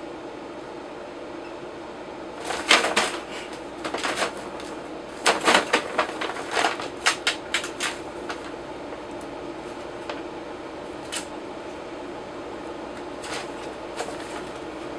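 Brown paper bag crinkling and rustling in a run of sharp bursts through the first half as a kitten plays inside it, then a few scattered single crackles. A steady hum runs underneath.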